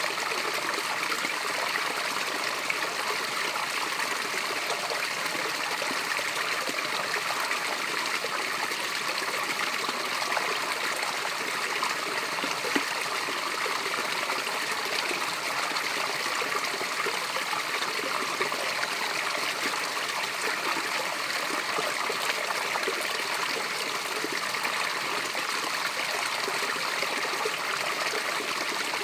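A natural water cascade running and splashing in a steady, unbroken rush. The sound is mostly a bright hiss with little deep rumble.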